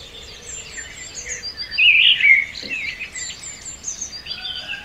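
Several small birds chirping and singing in quick, overlapping calls over a faint steady hiss, with the loudest run of calls about two seconds in.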